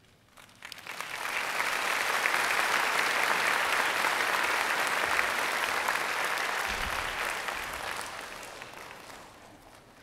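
Audience applause: clapping that swells about half a second in, holds steady, then dies away near the end.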